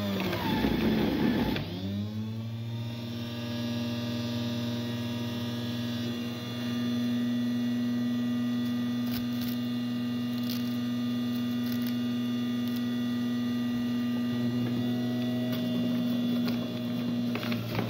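Electric centrifugal juicer's motor running with a steady hum. About a second in, it slows and grinds as celery is pressed down the chute, then winds back up to speed.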